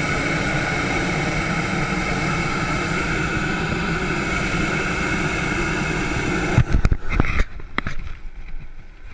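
Hot air balloon propane burner firing, a loud, steady blast that is shut off suddenly about six and a half seconds in, followed by a few sharp knocks.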